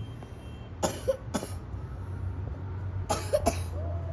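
A person coughing: a pair of short coughs about a second in and another pair about three seconds in, over a steady low rumble.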